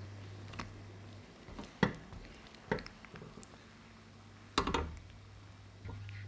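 Silicone spatula stirring thick, melting cheddar cheese sauce in a saucepan, with a few sharp knocks of the spatula against the pan, the loudest cluster a little before the end. A low steady hum sounds under the first second and returns near the end.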